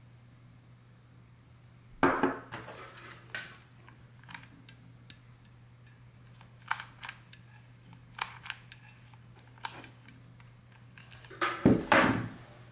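Handling sounds of a hot glue gun loaded with sealing wax over a ceramic plate: a loud knock about two seconds in, then scattered sharp clicks as wax is squeezed out onto the plate, and a cluster of louder knocks near the end.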